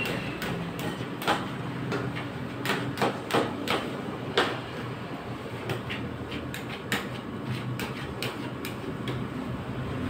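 Metal spatulas clicking and scraping against the steel freezing pan of a rolled-ice-cream machine as ice cream mix is chopped and spread thin, with a flurry of sharp taps in the first half. Underneath, the machine's refrigeration unit hums steadily.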